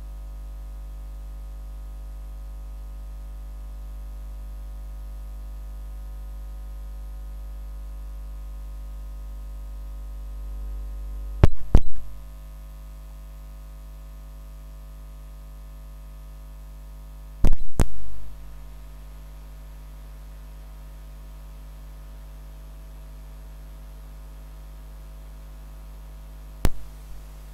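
Steady electrical mains hum with a low drone from the audio feed. Pairs of sharp clicks come about eleven and a half and seventeen and a half seconds in, and a single click comes near the end.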